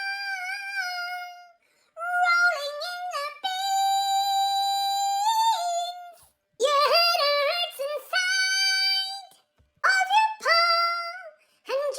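A high solo singing voice, unaccompanied, vocalising wordless drawn-out notes in short phrases, sliding between pitches with a long held note about four seconds in.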